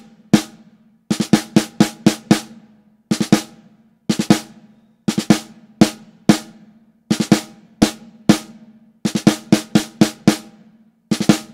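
Snare drum played with sticks in a march-like pattern of three-stroke ruffs: two quick bounced grace notes falling straight into a main stroke, between single strokes. The groups of strokes come about once a second, each ringing briefly.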